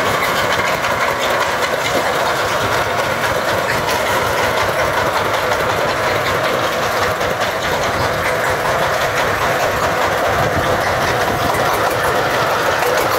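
Single-cylinder diesel engine of a homemade farm truck running steadily, with a fast, even beat.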